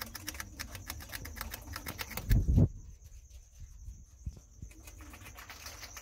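Grasscutter (greater cane rat) chewing a fluted pumpkin (ugu) stem: a rapid run of crisp crunching clicks. A loud low thump about two and a half seconds in, after which the chewing clicks come sparser and quieter.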